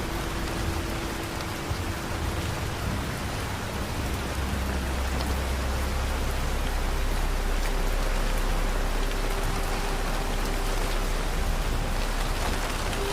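Steady rain falling, with soft, long-held tones of ambient music underneath that shift pitch now and then.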